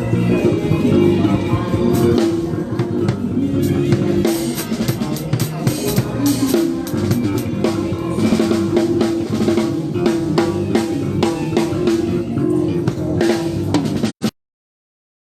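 Band music with a drum kit playing a busy beat of kick, snare and rimshots over bass and sustained pitched instruments. The sound cuts out suddenly about a second before the end.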